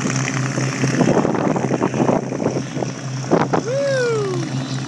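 Twin piston engines of an Aero Commander 560A (L-26) running as it taxis away, a steady propeller drone with gusts of wind on the microphone. A brief tone glides down about three and a half seconds in.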